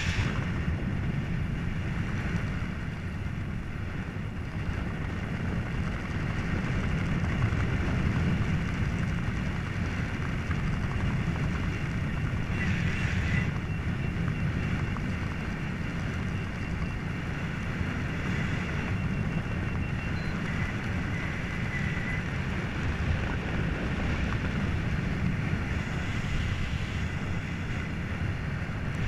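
Wind buffeting the camera's microphone during a parachute descent under an open canopy: a steady low rushing with no break.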